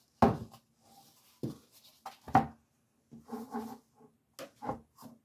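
Objects being handled on a work surface: a handful of sharp knocks with soft rubbing and rustling between them.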